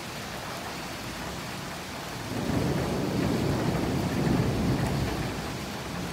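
Steady rain hissing, with a long rumble of thunder that rolls in about two seconds in and fades away after about three seconds.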